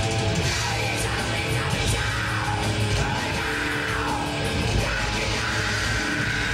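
Death metal band playing live, with heavily distorted guitars, bass and drums in a dense, continuous wall of sound.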